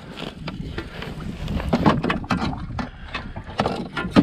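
Wind buffeting the microphone, under a string of irregular clicks and knocks that grow busier in the second half, the loudest one at the very end.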